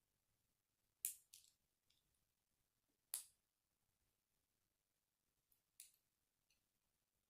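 Small plastic Lego bricks being pressed and snapped together by hand: a few sharp, separate clicks, the loudest about a second in and again about three seconds in, with fainter ticks between.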